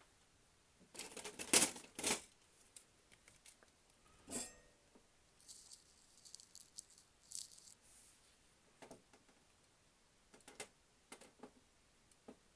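Small tools and parts being handled and set down on a sheet-metal workbench: a burst of rattling clatter about a second in, a sharp click near four seconds, a brief high hiss around six to eight seconds, then scattered light clicks.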